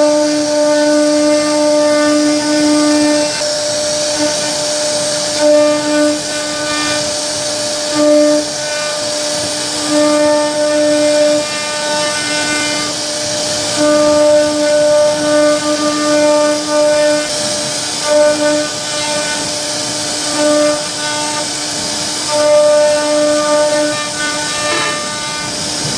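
CNC router spindle milling a carved pattern into a wooden door panel. It is a steady whine that drops in and out irregularly as the bit loads and unloads, over the hiss of the cutter chipping wood.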